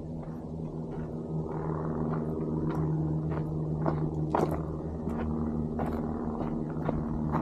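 An engine running steadily with a low hum, and footsteps clicking over it.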